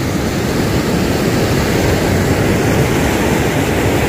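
Fast mountain stream rushing over rocks and through rapids: a loud, steady rush of water, heaviest in the low range.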